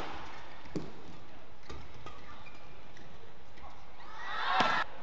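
Badminton rally over arena crowd noise: a sharp racket strike on the shuttlecock just under a second in, then a short swell of shouting and crowd cheering near the end as the point is won.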